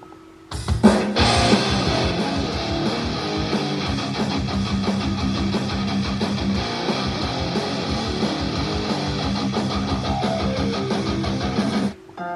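Guitar-driven rock music with strummed electric guitar and a steady beat. It starts about half a second in and cuts off suddenly just before the end, where a different guitar piece begins.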